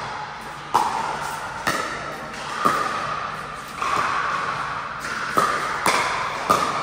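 Pickleball rally: hard paddles hitting the plastic ball about once a second, each crack ringing in a large hall, with the hits coming quicker near the end.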